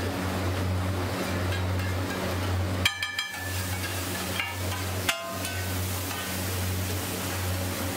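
A metal spatula working chopped onion and tomato on a flat iron tawa: two sharp ringing clanks of metal on the griddle, about three and five seconds in, over the steady hiss of the vegetables sizzling. A low steady hum runs underneath.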